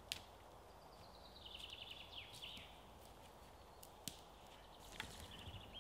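Faint song of a small songbird: a rapid trill of notes stepping down in pitch and ending in a short flourish, then a second, shorter trill near the end. A few faint clicks are scattered through it.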